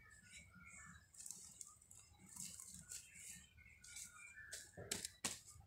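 Faint rustling of a dress's fabric as hands smooth and shift it. Two sharp clicks about five seconds in.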